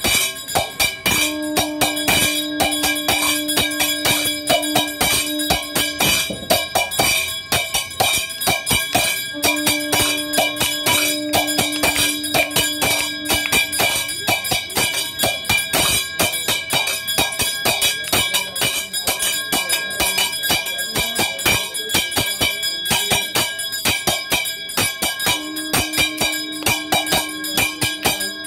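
Hindu temple puja music: bells ringing and rapid percussion strokes without a break, with a long steady low tone held three times, about a second in, about nine seconds in, and again near the end.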